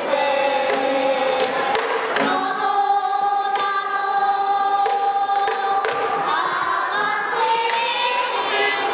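Group of children singing a pansori passage together in long held notes, with a few strokes on a buk barrel drum under the singing.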